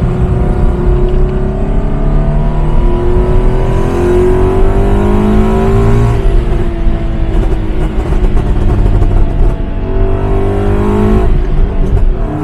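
Toyota GT86's flat-four engine, heard from inside the cabin, revving up with a slowly rising note, then lifting off into a scatter of exhaust pops and crackles on the overrun from its pops-and-crackles tune. This happens twice: the first lift-off comes about six seconds in, the second near eleven seconds.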